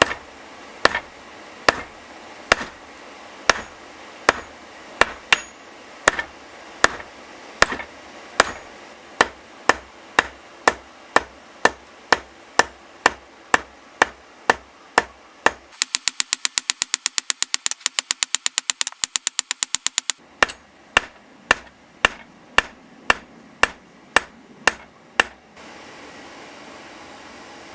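Hammer blows ringing on hot steel over an anvil while forging a round punch. The blows start at about one a second and quicken to about two a second. About halfway through comes a run of very fast, light strikes for about four seconds, then more single blows. Near the end a steady rushing noise takes over.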